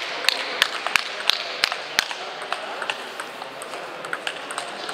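Celluloid-style table tennis balls clicking off tables and bats in a rally, sharp ticks about three a second over the first two seconds, then fainter and more scattered, with faint voices underneath.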